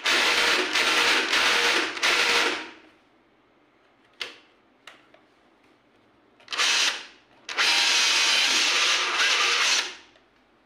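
Makita DHR243 18 V cordless rotary hammer run in trigger bursts: about three seconds, a short burst, then about two and a half seconds, with two light clicks in the pause. The tool is one whose hammer-drill mode is reported not to work.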